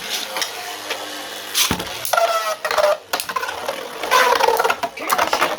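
Two 3D-printed Beyblade spinning tops spinning and grinding in a plastic stadium, with sharp clashing knocks and rattles as they hit each other.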